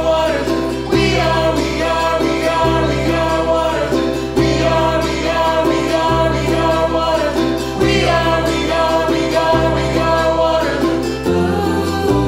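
Background song with voices singing over plucked-string accompaniment and a bass line that changes note about every second and a half.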